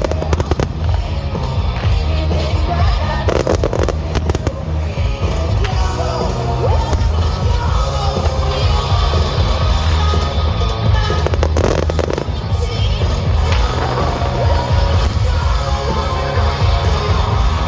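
Fireworks going off over loud music with a heavy bass, with clusters of rapid bangs at the start, about three seconds in and about twelve seconds in.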